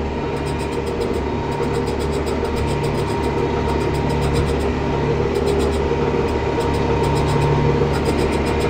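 Farm tractor's engine running steadily under load while pulling a row cultivator through the soil, growing slightly louder.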